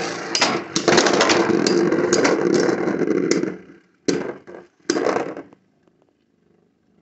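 Two Beyblade Burst spinning tops whirring and clashing in a clear plastic stadium: a continuous rattling grind full of sharp clacks for about three and a half seconds, then two short bursts of clashing about four and five seconds in, before going quiet.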